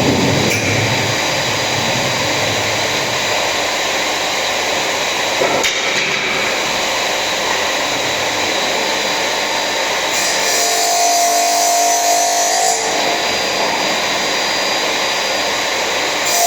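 A power tool running steadily while working wood, its sound shifting in pitch for a few seconds about two-thirds of the way through.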